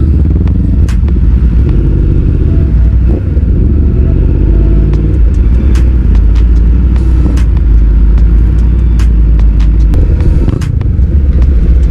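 Motorcycle engine running at low road speed with wind rumble on the bike-mounted microphone; the engine note rises and falls with the throttle, and a few short clicks are heard.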